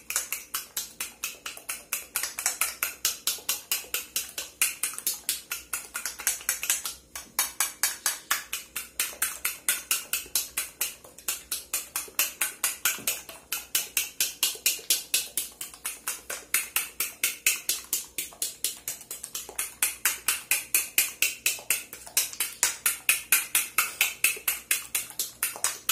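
Egg batter being beaten by hand in a ribbed glass bowl: the utensil clicks rapidly against the glass, about four to five strokes a second, with two short breaks.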